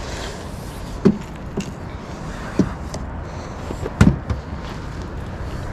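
Several sharp knocks inside a small fishing boat, the loudest a double knock about four seconds in, over a steady rush of wind.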